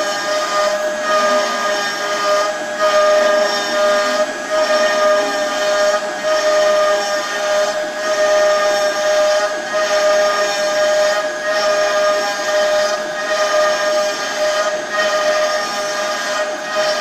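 CNC router spindle running at a steady high-pitched whine while its bit cuts along a wooden frame, with a hiss of cutting underneath. The level dips briefly every second or two.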